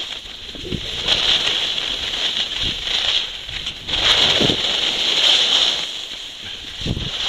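Skis hissing and scraping over groomed, packed snow at speed, the hiss swelling and fading in waves as the skier turns. A few brief low rumbles of wind on the microphone run underneath.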